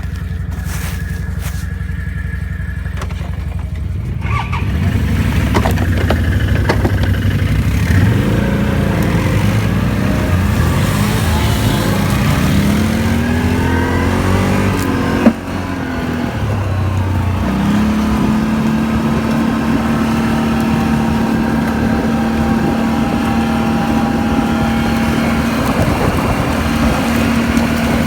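Can-Am Outlander ATV engine running low at first, then revving up in several rising sweeps as it accelerates. A single sharp knock comes about halfway, and the engine then settles into a steady, higher-pitched run.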